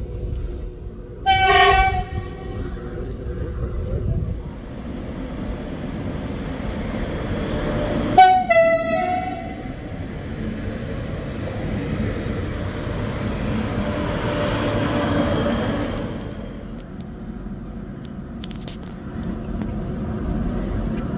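Train horn sounding two short blasts, about a second apart from the start and again about eight seconds in, as the train pulls out of the station. The rumbling running noise of the train getting under way swells and fades in the middle of the stretch.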